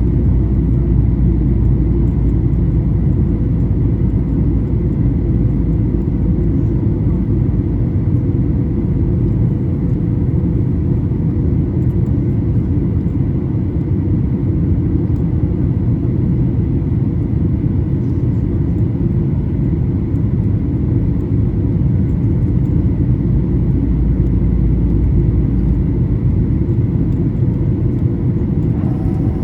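Steady, loud rumble inside the cabin of a Boeing 737-800, its two CFM56-7B engines running under a constant hum with faint steady tones above it.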